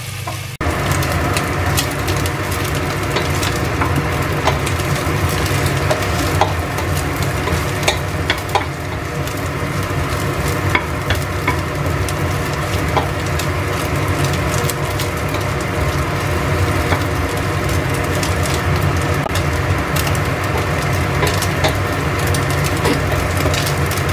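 Shallots, garlic, red chillies and dried anchovies sizzling in hot oil in a stainless steel frying pan. A wooden spatula stirs them, scraping and tapping against the pan, over a steady low hum. They are being fried down until the anchovies turn slightly dry.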